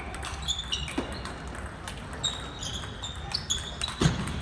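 Table tennis rally: the ping-pong ball clicking off paddles and table, with a louder knock about four seconds in, and sneakers squeaking in short chirps on the hardwood floor.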